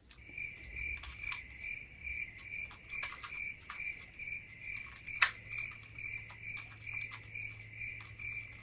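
Cricket chirping in a steady pulse, about three chirps a second, over a low steady hum. A few sharp clicks fall among the chirps, the loudest about five seconds in.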